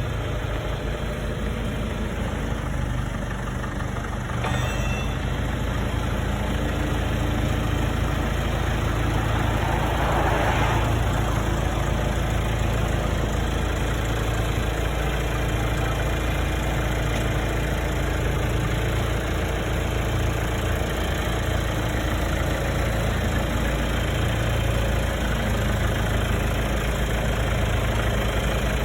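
1976 John Deere 310-A loader/backhoe's engine running steadily at idle, getting a little louder about four seconds in.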